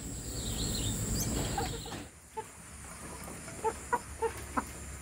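Chickens clucking: a handful of short clucks in the second half, over a steady background hiss.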